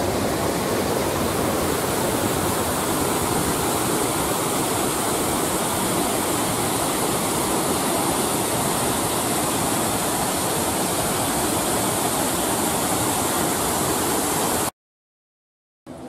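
Water rushing steadily over a low canal weir, pouring through its spillways in a continuous roar of noise. It stops abruptly near the end, with a moment of silence and then a much quieter outdoor background.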